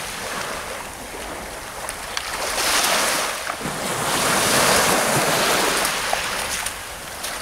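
Baltic Sea surf washing onto the beach, rising and falling, with two louder waves about three and five seconds in. Wind rumbles on the microphone underneath.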